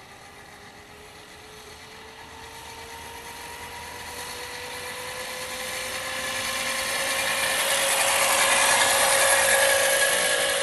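Electric scooter motor whining steadily, growing much louder as the scooter approaches, its pitch creeping slowly upward.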